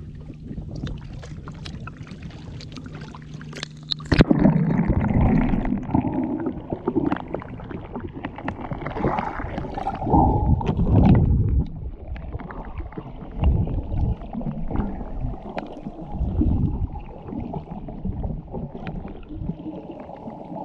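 Water splashing around a handheld action camera at the surface, then about four seconds in it plunges under and the sound turns to muffled underwater rumbling and bubbling as a snorkeler dives.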